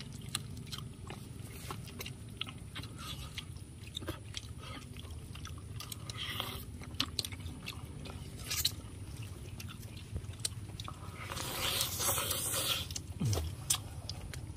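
A person eating softshell turtle meat off the bone, close up: chewing and biting with many small wet mouth clicks and smacks, and a louder sucking noise about eleven seconds in as the meat is sucked from a bone.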